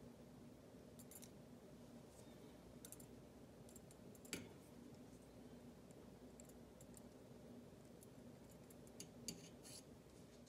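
Near silence with a few faint, scattered clicks of metal tweezers against the copper wire and the steel pot, a sharper click a little over four seconds in and a small cluster near the end, over a faint steady hum.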